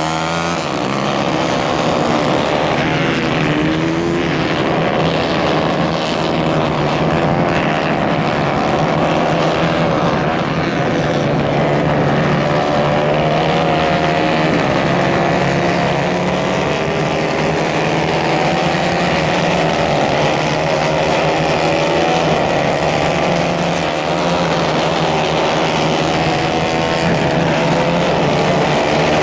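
Several small 150 cc go-kart engines running hard in a race, their overlapping notes rising and falling as the karts pass and accelerate.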